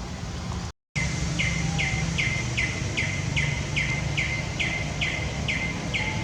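A bird calling a rapid, even series of short chirps, each falling slightly in pitch, about two or three a second, over a steady low background rumble. The sound drops out briefly to silence just under a second in.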